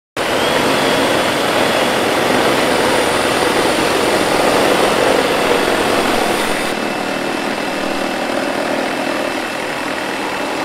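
Metabo, DeWalt, Hilti and Milwaukee cordless reciprocating saws running together, their blades cutting through a 2x12 board. The saws start suddenly. About seven seconds in, a high whine cuts out and the sound thins as the Metabo and DeWalt finish the cut, while the Hilti and Milwaukee keep sawing.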